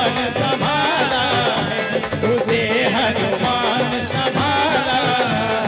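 Live Hindi devotional bhajan music: a man singing with harmonium accompaniment and a steady drum rhythm.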